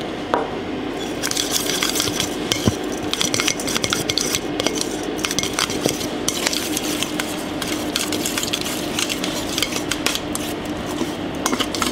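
Metal spoon stirring minced raw beef in a stainless steel mixing bowl, scraping and clinking against the bowl in a rapid, continuous run from about a second in, over a steady low hum.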